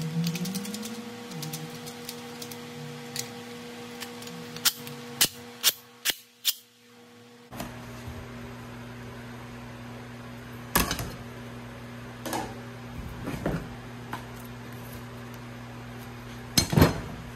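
Handling noise on a workbench: aluminum angle brackets and bolts clink in a run of five sharp clicks about five seconds in, and later white plastic cutting boards knock a few times as they are picked up and stacked. A steady low hum runs underneath.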